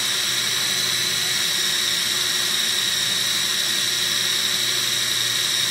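Small electric food processor (mini chopper) running steadily at full speed while its top is held down, its motor giving a constant high whine as the blade purées beans into a dip.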